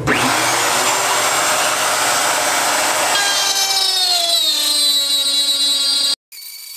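Router table's motor switched on and coming up to speed, then a quarter-inch straight bit cutting a groove in a wooden board fed along the fence. The whine drops in pitch about three seconds in and then holds steady, and the sound cuts off abruptly near the end.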